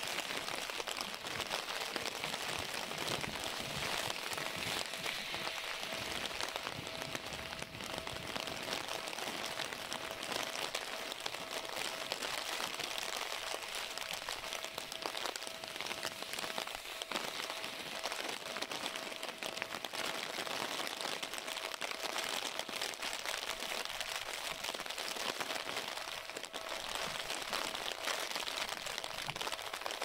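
Heavy typhoon rain pattering on an umbrella and the wet ground, an even steady hiss, with a faint steady tone underneath.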